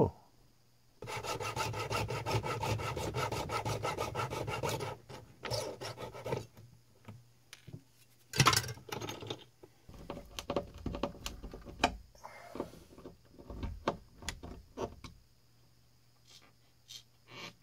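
Hand-tool work: about four seconds of fast scraping strokes, like a tool worked back and forth on wood. After that come scattered clicks, taps and knocks of small parts being handled, with one sharper click a little past the middle.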